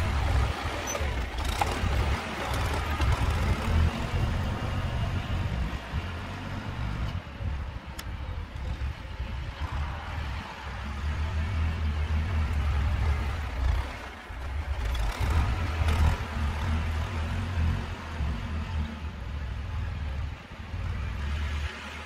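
Vladimirets T-25 tractor's two-cylinder air-cooled diesel engine running, a low drone that rises and falls in level.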